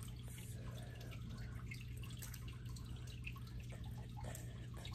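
Faint, scattered small plastic clicks and rattles of Lego bricks being handled, over a steady low hum.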